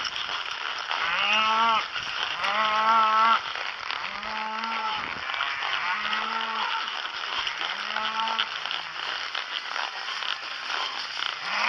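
Cattle mooing, about five separate drawn-out moos one after another, each about a second long.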